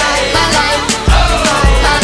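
Hip hop backing track with a heavy, repeating bass beat.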